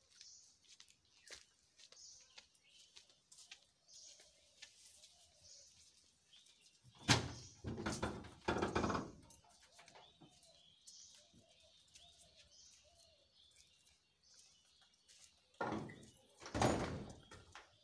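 Birds chirping faintly in the background, broken by two louder spells of clattering noise, one about seven seconds in lasting a couple of seconds and another near the end.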